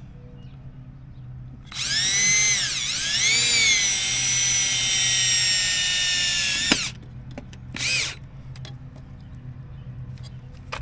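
Power drill driving a screw to fasten the hydrant to the wall: the motor runs for about five seconds, its pitch dipping and rising as it loads, stops with a click, then gives a short second burst about a second later.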